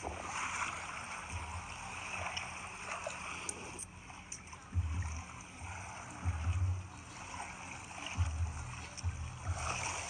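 Steady hiss of shallow seawater washing over a rocky tide flat, with low rumbles of wind buffeting the microphone a few times in the second half.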